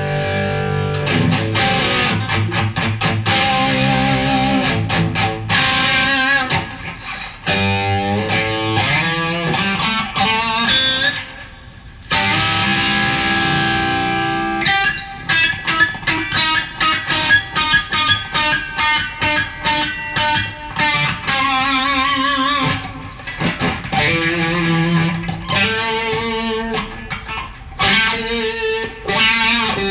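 Reverend Flatroc electric guitar played through a Skreddy Screwdriver overdrive pedal and amplifier: busy picked riffs and ringing chords, with a brief drop in level about twelve seconds in and some notes shaken with vibrato later on.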